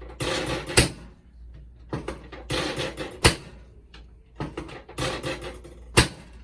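Chiropractic adjustments: three sharp cracks about two and a half seconds apart, each at the end of a short rustle of movement on the treatment table.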